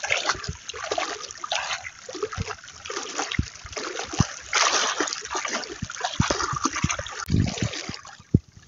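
Shallow seawater splashing and sloshing close by as legs wade through it, with irregular small splashes and trickles.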